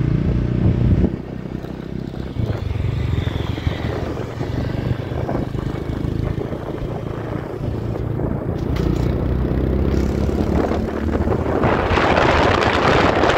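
Motorcycle engine running steadily while riding, with wind buffeting the microphone, which grows much stronger near the end.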